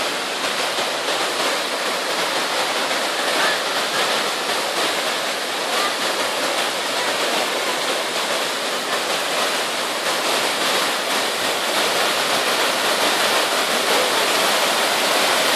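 Waterfall: a steady rush of falling water with no let-up.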